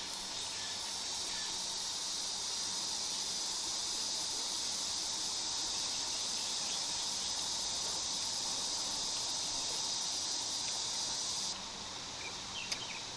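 Insects droning in a steady high-pitched chorus that cuts off suddenly about eleven and a half seconds in, with a faint click or two near the end.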